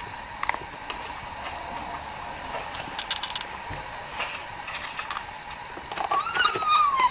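A cat gives one drawn-out meow that rises and then falls, about six seconds in, after a stretch of scattered small clicks and smacking sounds.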